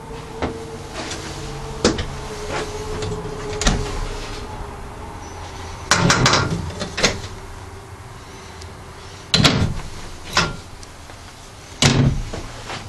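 Cabinet and cupboard doors in a fifth-wheel trailer being opened and shut: a string of irregular clunks and knocks, the loudest about halfway through, again near the three-quarter mark and near the end.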